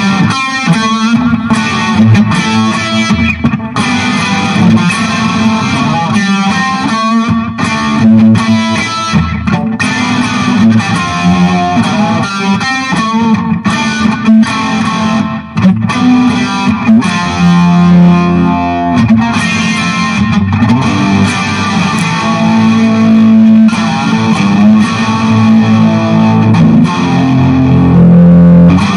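Electric guitar played through a 20-watt Orange Micro Terror hybrid amp head (tube preamp, chip output stage) into a 12-inch Celestion speaker, with a slightly overdriven tone that has a little bite and extra gain. It plays steadily with no break, showing that the amp works again after its blown output chip was replaced.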